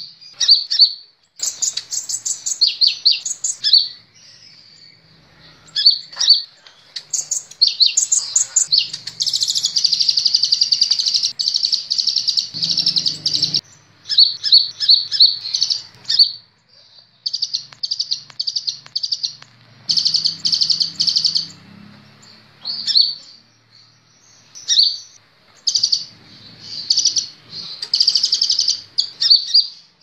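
A male Kolibri Ninja (van Hasselt's sunbird) singing: high-pitched chirps and fast trills in repeated bursts with short pauses between them. A long, dense run of rapid trilling comes about a third of the way in.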